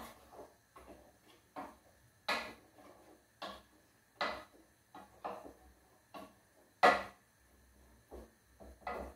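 A spoon stirring corn kernels in a metal saucepan, knocking against the pot in about a dozen sharp, irregular clinks, the loudest near the end.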